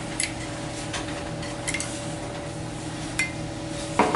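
Occasional light clinks of a ceramic cup and a glass measuring cup being handled, with a louder double knock near the end, over a steady low hum.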